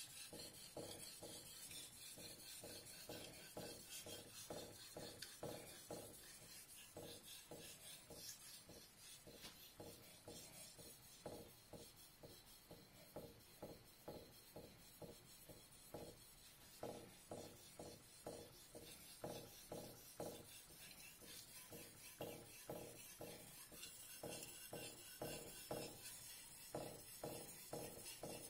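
Fujiwara Maboroshi gyuto with a Shirogami #1 steel edge, rubbed back and forth by hand on the #8000 face of a wet Suehiro #3000/#8000 combination whetstone. It makes faint, even scraping strokes, about two to three a second, in runs with short pauses.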